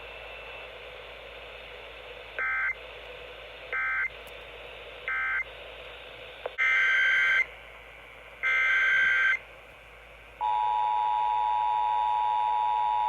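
Emergency Alert System data bursts and tones. Over a steady hiss come three short end-of-message data bursts, then two longer, louder SAME header bursts. Near the end the steady two-tone attention signal begins.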